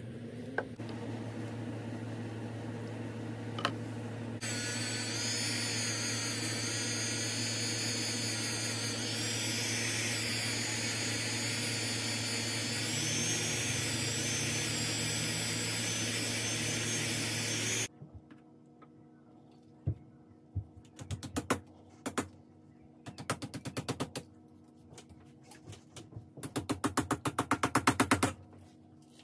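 Handheld rotary tool with a small polishing wheel running steadily on braided fine-silver wire, with a constant hum and a high whine that gets louder about four seconds in. It stops suddenly after about eighteen seconds. Then come several quick bursts of rapid metallic tapping on the steel mandrel holding the silver cuff, each with a ringing tone, the loudest near the end.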